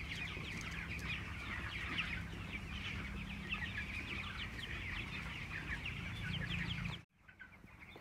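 A flock of 26-day-old broiler chickens cheeping, with many short chirps overlapping in a steady chatter that cuts off suddenly about seven seconds in.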